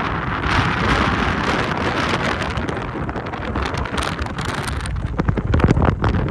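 Wind buffeting the microphone: a steady gusty rumble with crackle, swelling in a stronger gust about five seconds in.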